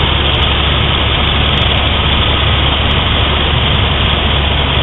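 A small plane's engine and propeller running steadily at cruise, heard loud and unbroken from inside the cabin.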